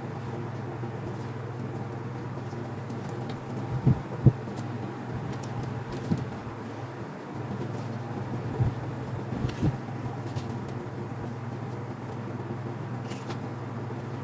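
Lassane Espiramatic hand-cranked spiral-binding hole punch being worked: a few sharp metal clunks as the crank is pulled to punch the sheet and the sheet is handled, the two loudest close together about four seconds in. A steady low hum runs underneath.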